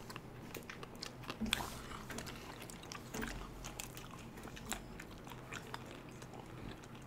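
People eating chocolate-coated ice cream bars: quiet bites into the bars and chewing, with many short, scattered wet mouth clicks.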